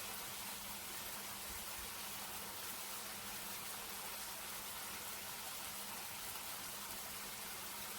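Chicken fillets sizzling steadily in oil and chili sauce in a frying pan, with a faint low hum underneath.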